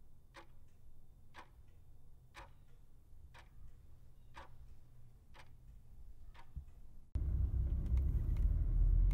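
A clock ticking about once a second over a faint low hum. About seven seconds in, it gives way to the louder low rumble of a car driving, heard from inside the car.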